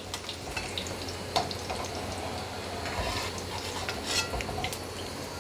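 Paneer cubes sizzling steadily in hot oil in a wok. A slotted steel spoon gives a few light clicks and scrapes against the pan as the pieces are lifted out to drain.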